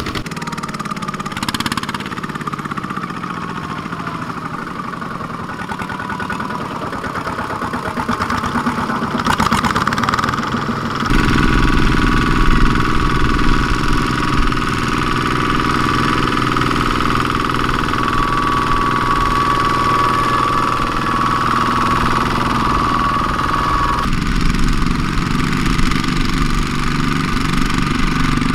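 Single-cylinder diesel engines of Kubota two-wheel hand tractors running steadily under load as they pull loaded trailers. The engine sound changes abruptly twice, about a third of the way in and again near the end.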